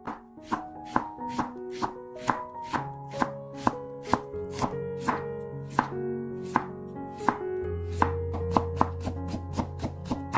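Chef's knife slicing carrot into thin strips on a wooden cutting board, about two even chops a second, over soft background music.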